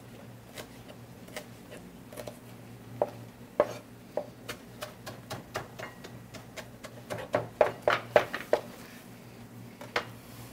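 Chef's knife chopping parsley on a plastic cutting board: scattered knife strikes, then a quicker run of louder chops about three-quarters of the way through.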